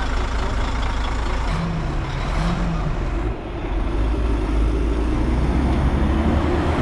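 A heavy diesel engine running steadily, loud and low-pitched, with a brief drop in level about halfway through.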